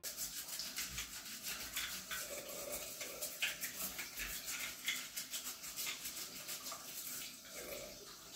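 Water running from a bathroom tap into a sink while a toy figure is rubbed and scrubbed by hand under the stream, with quick irregular scratchy rubbing strokes over the steady splash of the water.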